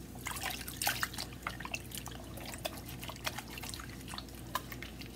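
Water sloshing, dripping and splashing lightly in a small plastic bowl as hands squeeze and rinse a soapy terry washcloth, in many small irregular splashes. A faint steady low hum runs underneath.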